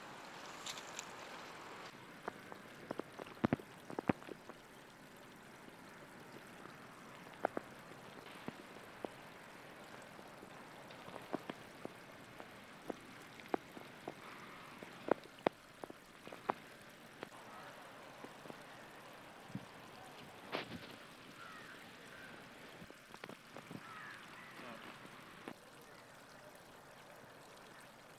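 Faint steady hiss of river water, broken by scattered sharp clicks and taps from handling the hook and line on the bank.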